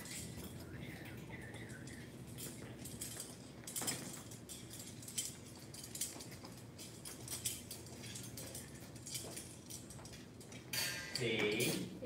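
Pair of metal butterfly knives clinking against each other in scattered, sharp clicks as they are swung, with faint voices near the end.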